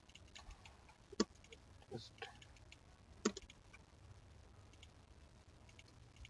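Scattered computer mouse and keyboard clicks, with two sharper ones about a second in and just past three seconds, over a faint low hum.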